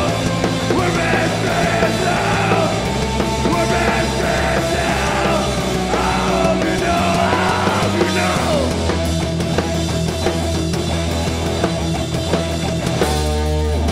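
Loud punk-style rock band playing live, with singing over roughly the first eight seconds and the band carrying on instrumentally after that.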